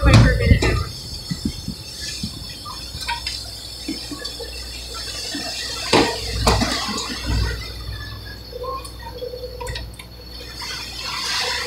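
Water churning and splashing in the wake of a fast-moving boat over a steady low engine drone, with two sharp knocks about six seconds in.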